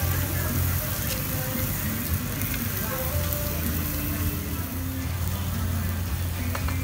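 Pork slices sizzling steadily on the hot dome of a charcoal-fired moo kata grill pan, over a steady low hum.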